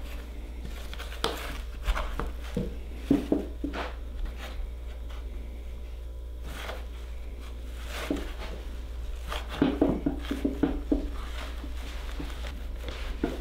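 Soft, irregular rustling and tapping of hands working a damp deer hide, pressing clay up into the ear, with a quicker run of taps about ten seconds in.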